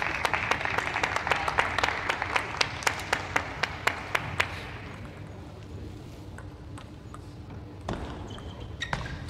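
Audience applauding with many sharp individual claps, fading out about halfway through. Near the end come a few sharp knocks of a table tennis ball on bat and table as a rally starts.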